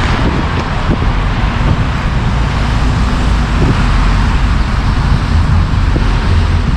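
Steady city street noise from road traffic, a continuous low rumble.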